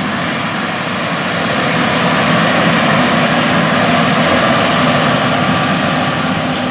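Heavy farm machinery's diesel engine running under load, a loud steady roar without breaks.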